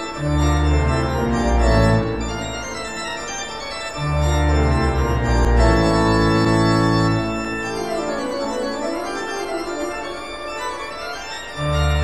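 Organ music: slow sustained chords, with deep bass notes swelling in at the start, again about four seconds in, and near the end.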